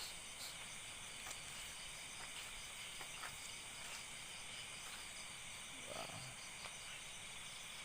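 Crickets and other night insects trilling steadily in several high bands, with a few faint clicks.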